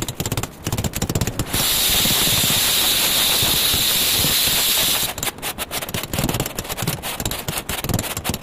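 Straight edge dragged and scraped across a loose bed of sand-cement mortar to level a floor: gritty scraping and knocks, with a steady hiss lasting about three seconds in the middle, then a quick run of short scrapes and knocks near the end.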